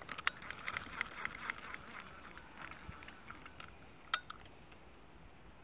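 Close handling noise by the microphone: a quick run of small clicks and rustles for about two seconds, a few lighter ticks, then a single sharp click a little after four seconds.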